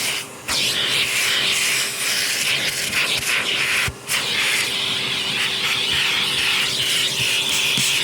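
Vacuum cleaner running with a steady rush of air and a constant motor whine, the sound dropping away sharply for a moment twice, near the start and about halfway through.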